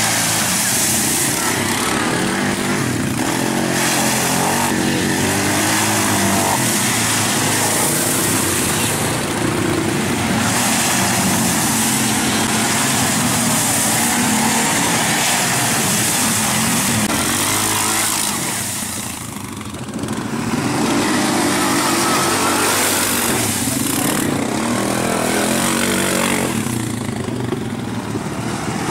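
Several quad ATV engines running and revving as they drive through water and mud, the pitch rising and falling with the throttle, over a steady splashing hiss. There is a brief lull about two-thirds of the way through.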